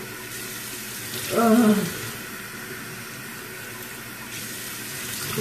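Bathroom sink tap running cold water as a face is rinsed under it. A short wordless vocal sound rises over the water about a second and a half in.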